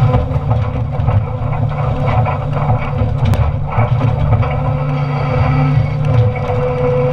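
Doosan Solar 255 LC-V excavator's diesel engine running steadily under load while its hydraulics work a stump shear splitting timber. A steady higher whine comes in about six seconds in.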